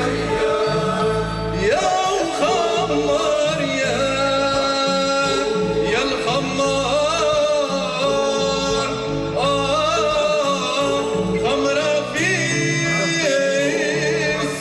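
Live stage music: a voice singing a wavering, ornamented melody over steady accompaniment.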